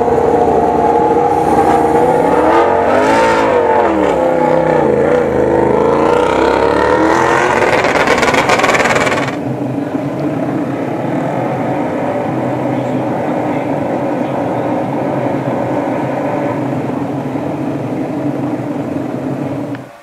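Yamaha YZR-M1 MotoGP bike's crossplane inline-four engine being revved, its pitch swinging up and down and then climbing for several seconds. It then settles to a steady idle and stops just before the end.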